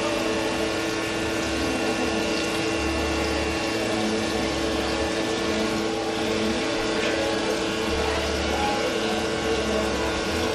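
A pot of potatoes boiling and a pan frying on the stove: a steady bubbling hiss with a constant hum beneath it.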